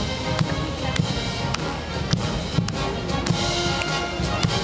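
Military marching band playing a march, with brass holding the tune over a drum beating a little under twice a second.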